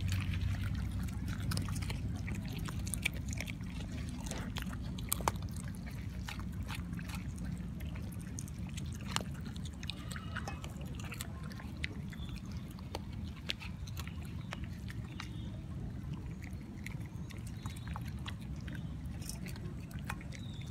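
Puppies eating boiled rice and chicken from a steel bowl, with irregular wet smacking and clicking of chewing and lapping. A low steady rumble runs underneath.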